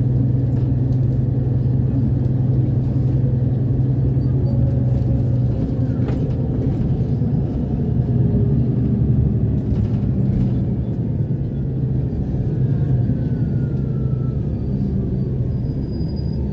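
City bus heard from inside the cabin: a steady engine drone and road rumble. Over the second half a faint whine slowly falls in pitch.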